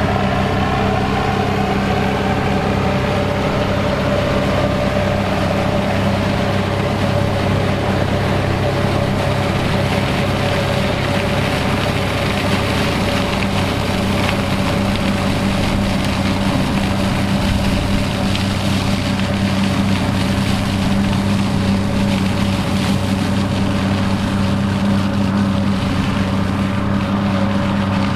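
Fiat 800 tractor's turbocharged diesel engine running steadily while it drives a beet top-cutter, with a higher whine that slides down in pitch in the first few seconds.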